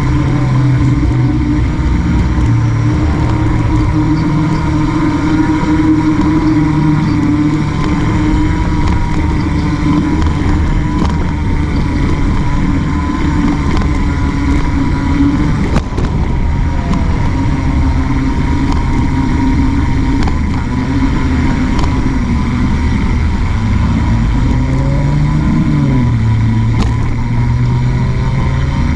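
Wind rushing over the microphone of a handlebar-mounted action camera on a moving bicycle, mixed with traffic on the road alongside. There is one sharp knock about halfway through, and a passing engine's pitch rises and falls near the end.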